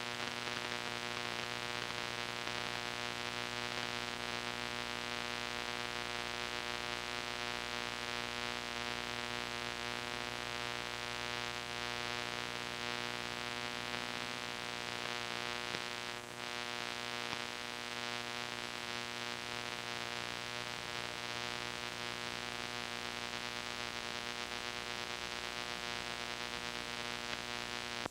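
Steady hiss with a buzzing electrical hum, unchanging throughout, from an old VHS tape transfer; it cuts off abruptly at the end.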